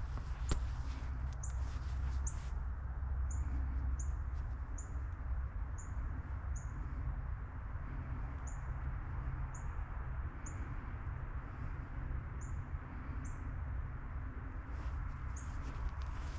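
A small bird repeatedly giving a short, high chirp, about one a second, over a steady low rumble of wind on the microphone.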